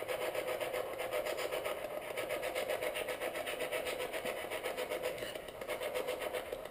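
Spirit box sweeping through radio stations: a steady stream of static, chopped evenly several times a second.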